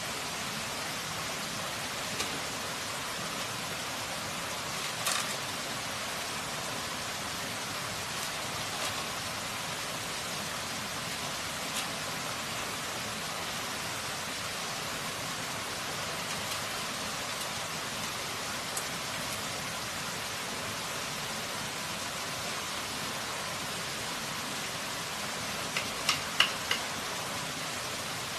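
Steady hiss of running water. Now and then a light knock sounds as bamboo strips are handled. Near the end comes a quick run of about five sharp, ringing knocks as a knife strikes bamboo.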